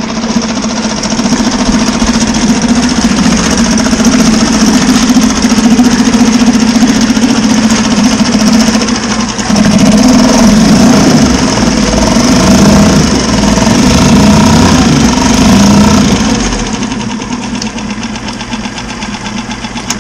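Mercury 2.5 hp FourStroke single-cylinder outboard running in a water-filled test tank, its propeller churning the water. It is loud and steady through the middle and eases off over the last four seconds.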